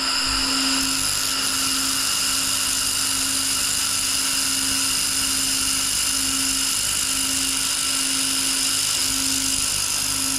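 Everlast Red Sabre 1500 handheld laser welder running a continuous weld on 18-gauge stainless steel with filler wire and nitrogen shielding gas: a steady high-pitched whine over a hiss. Under it runs a low hum that pulses at an even rate.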